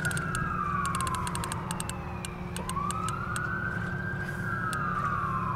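A siren wailing, its pitch rising and then falling slowly, one sweep about every four seconds, over a steady low rumble. A few sharp clicks sound in the first half.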